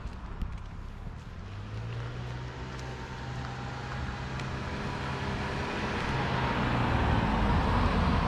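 A car approaching from behind and passing close by, its engine hum and tyre noise on the asphalt growing steadily louder and peaking as it goes past near the end.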